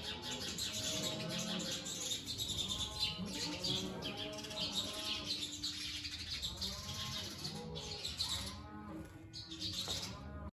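A flock of poultry calling, many short clucking calls overlapping, over a busy layer of higher chirping and peeping; the sound cuts off suddenly at the end.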